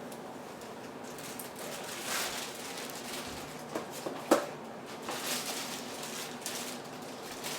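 A plastic bag rustling in brief spells as food is handled, with a few light clicks and one sharper knock about four seconds in.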